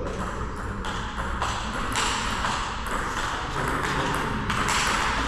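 Table tennis rally: the celluloid-type ball clicking off the paddles and bouncing on the table in quick alternation, about two sharp hits a second.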